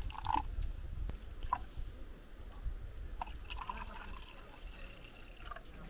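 Water dripping: a few separate drops plopping, the loudest about a third of a second in.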